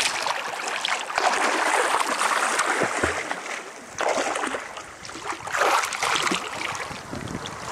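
Shallow seawater sloshing and splashing around a camera held at the surface beside a swimming snorkeler, the sound rising and falling unevenly with her strokes and the camera's movement; it dulls briefly about four seconds in as the camera dips under.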